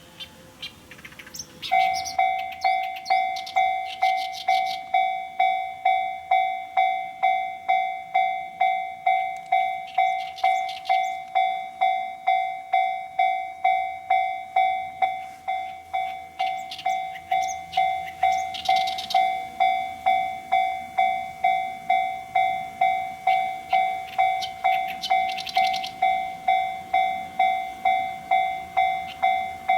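Japanese level-crossing warning bell starting about two seconds in and ringing steadily, an electronic clang repeating at about one and a half strikes a second: the signal that a train is approaching the crossing.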